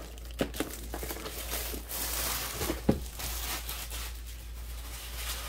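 Clear plastic shrink wrap crinkling as it is pulled off a cardboard box, with a few sharp clicks along the way.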